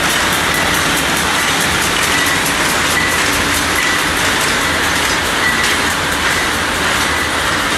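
Fish hook production machines running: a loud, steady, dense mechanical clatter of rapid clicks, with a faint high squeak recurring about once a second.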